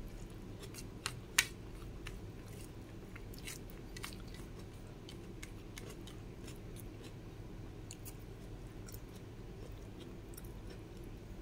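Close-miked chewing of food, with scattered short crisp clicks and mouth sounds over a steady low hum; the sharpest click comes about a second and a half in.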